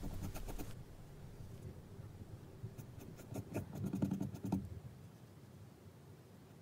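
Paintbrush working acrylic paint on canvas: faint scratchy strokes and small clicks, with a cluster of brushing strokes about three to four and a half seconds in.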